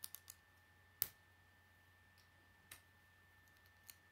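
Plastic Lego bricks clicking as they are pressed together and handled. Three quick clicks at the start, a sharper one about a second in, then two more spaced out.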